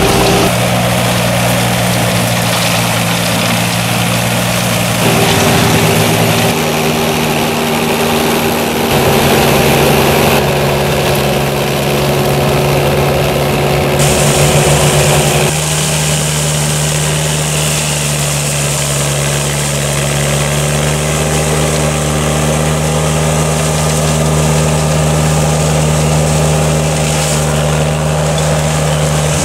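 Engine of a Berti E-Trail remote-controlled tracked flail mulcher running steadily under load while the flail rotor shreds grass and scrub. Its pitch steps to a new steady level a few times.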